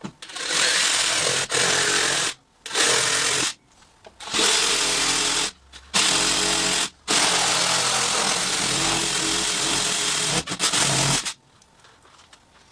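Power tool cutting into old drain pipe, run in about six bursts of one to three seconds with short pauses between, stopping near the end.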